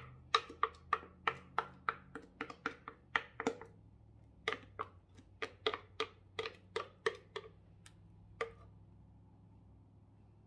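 A spoon knocking against a mixing bowl while working through pie filling: sharp ringing taps about three a second, in two runs with a short pause between, then a single last tap.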